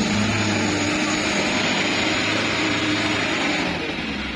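A light dump truck's engine running hard under load as the truck climbs a slippery dirt slope. The engine eases off slightly near the end.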